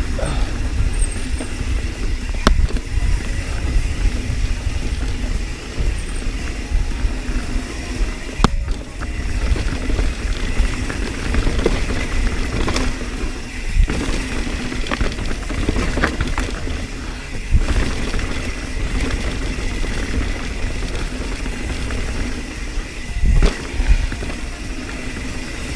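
Mountain bike rolling fast down a dirt singletrack, heard close on a bike-mounted camera: wind rumble on the microphone and tyre noise over dirt and leaves, with a few sharp clacks and rattles as the bike goes over bumps.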